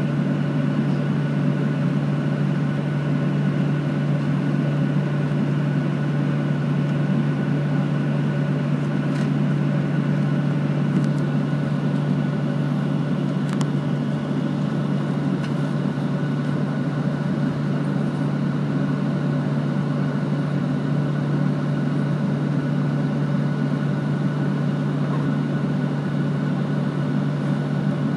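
Steady cabin drone of a Boeing 737-800 on the ground with its CFM56 engines at idle: a strong low hum with several thin, steady higher tones over an even rushing noise.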